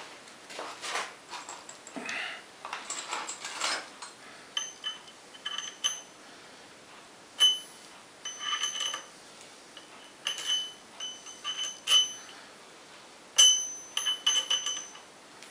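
Steel lathe chuck handled and seated against the faceplate: first a few seconds of scraping and rubbing, then a series of short, ringing metal-on-metal clinks as the parts touch.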